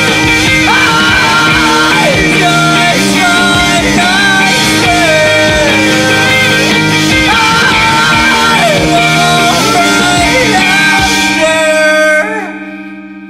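Rock song with singing over a full band. About twelve seconds in the band stops on a last chord, which rings and fades out.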